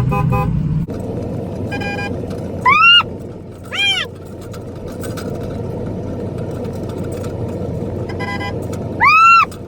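Pickup truck horn tooted in short honks to call cattle, with the truck running underneath. Three loud, short, high calls that rise and fall in pitch break in near three seconds, four seconds and nine seconds.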